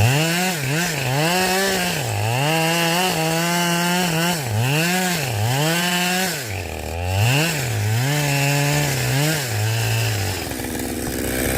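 Two-stroke chainsaw at high revs cutting through a log. Its engine pitch repeatedly sags as the chain bites into the wood and climbs back when it frees. About ten seconds in it drops to a lower, steadier speed.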